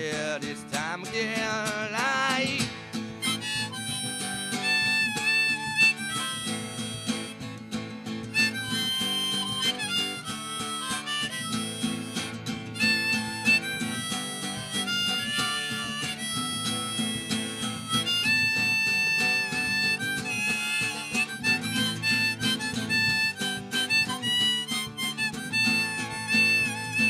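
Instrumental music: a harmonica playing a solo over acoustic guitar, with bending notes in the first couple of seconds and then longer held notes.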